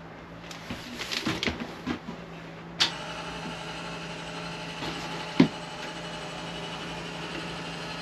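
Drop-down bunk bed's lift mechanism running steadily as the bed lowers, starting with a click about three seconds in after a few knocks, with one sharp knock midway.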